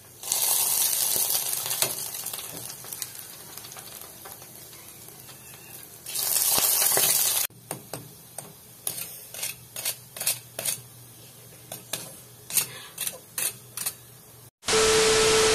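Freshly deep-fried pork hock sizzling and hissing, the sizzle fading, with a second louder burst of sizzling midway. After a cut comes a run of sharp crackles and taps as tongs handle the crisp skin on a metal rack. Near the end a loud steady tone with hiss begins.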